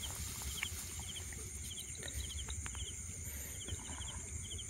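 Crickets chirping in repeated short trills of a few quick pulses, over a steady high insect hum, with low rustling and a few faint clicks underneath.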